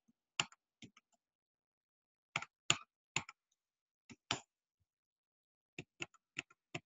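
Computer keyboard and mouse clicks: a handful of short, separate clicks in small groups, with dead silence between, as the number 150 is typed into text boxes.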